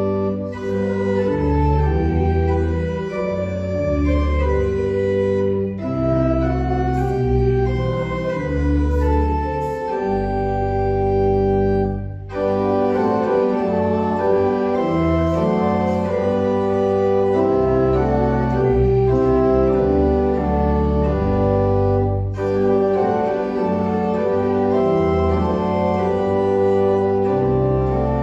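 Church organ playing slow, sustained chords over a deep pedal bass, the harmony shifting every second or two, with short breaks between phrases.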